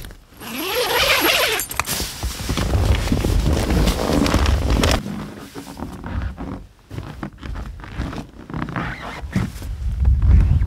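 Nylon tent door zipper pulled open in a quick rasping run, followed by rustling, scattered clicks and low rumbling noise.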